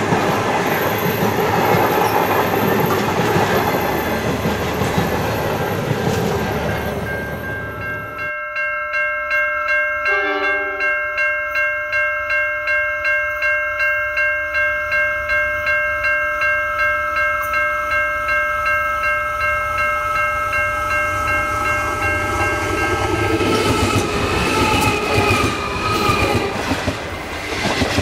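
Passenger carriages rolling past, with steady wheel-on-rail noise. After a sudden change, a steady chord of high ringing tones, pulsing about twice a second, comes along the track as a diesel-electric locomotive approaches. Near the end the locomotive's wheels rumble and clatter right over the rail close by.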